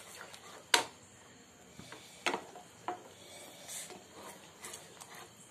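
A spatula stirring thick gravy in a pan, scraping and rubbing along the bottom, with three sharp knocks against the pan, the loudest about a second in.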